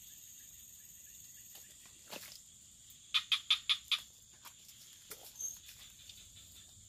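A frog calling: a quick run of about five loud croaks within a second, over a steady high-pitched insect buzz.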